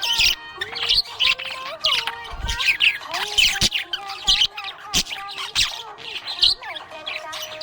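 Budgerigars chirping and warbling in a busy, unbroken run of short high chirps mixed with squawky notes.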